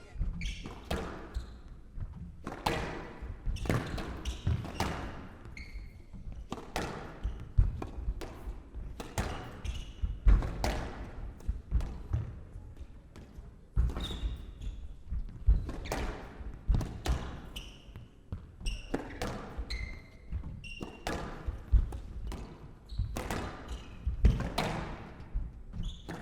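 Squash rally in a hall: the ball cracking off rackets and walls about once a second, with short high squeaks from shoes on the court floor between the hits.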